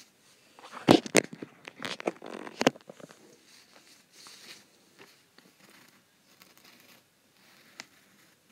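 Sheets of paper handled and rustled on a tabletop, with a cluster of sharp knocks and rustles about one to three seconds in, then only faint, scattered rustling and a single click near the end.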